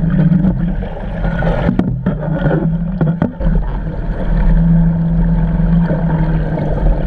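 Steady low hum of the research vessel's machinery heard underwater through the camera housing, over a watery rushing noise, with a few sharp clicks about two and three seconds in.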